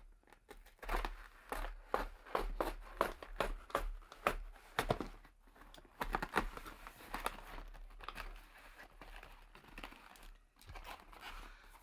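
A box being unpacked by hand: packaging crinkling and tearing, with irregular crackles and snaps.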